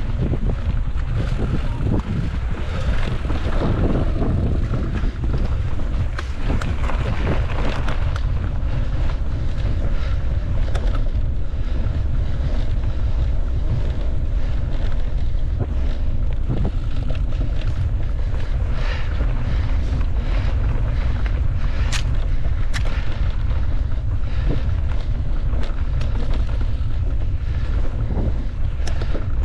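Steady wind rumble on the microphone, with scattered clicks and light rattles over it.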